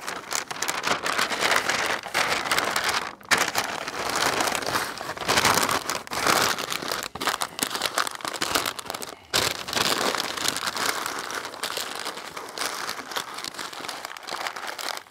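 Butcher paper crinkling and rustling as it is folded and rolled tightly around a rack of smoked beef ribs, the wrapping stage of the smoke. The noise is broken twice by short gaps.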